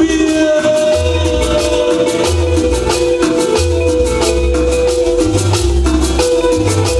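Latin dance music with a steady rhythm: a repeating bass pulse, held melody notes and fast, even percussion ticks on top.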